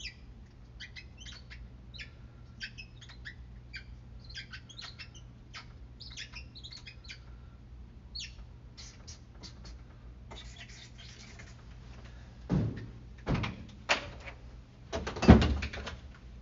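Hands working at an office desk: a run of short high squeaks for about the first ten seconds, then four knocks from about twelve seconds in, the last the loudest. A steady low hum runs underneath.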